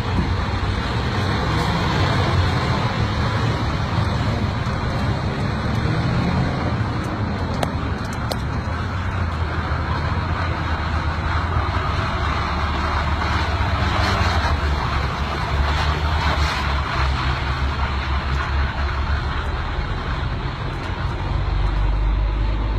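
Steady road noise from a semi-truck close by on a snow-covered highway: its engine rumbles low and its tyres run on snow. The low rumble swells near the end.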